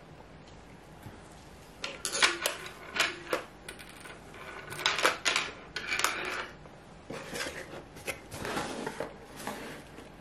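Pieces of a gel nail polish kit being handled and unpacked: an irregular run of clicks, clinks and rustling, starting about two seconds in.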